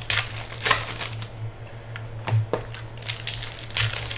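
Foil wrapper of a 2016 Panini Certified Racing hobby pack being torn open and crinkled by hand, in several short crackling rips, loudest near the start and near the end, over a steady low hum.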